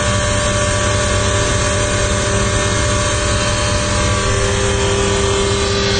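An engine running steadily at a constant speed, a loud hum with several steady tones.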